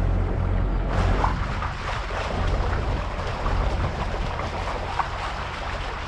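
Wind rushing over the microphone with a steady low rumble and water noise, aboard a sailing catamaran.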